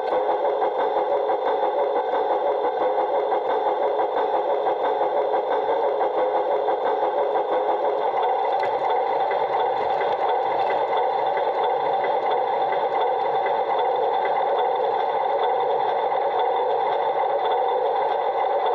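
LGB garden-scale model Mallet locomotive running, heard from on board: a steady whir of its electric motor and gearbox with fast, fine ticking from the drive, pulsing slightly in the first half and steadier later.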